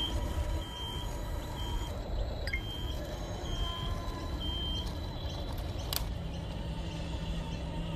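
Radio-controlled Volvo excavator's travel alarm beeping, a short high beep just under once a second, about five times, as the model tracks down off the trailer, over a low steady rumble. The beeping stops a little past halfway.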